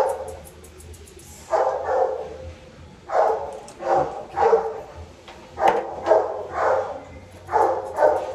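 A dog barking repeatedly: about ten short barks, several in quick pairs.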